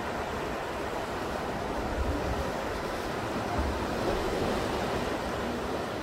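Sea surf washing and churning among black volcanic rocks at the shoreline: a steady rushing wash that swells a little a couple of times.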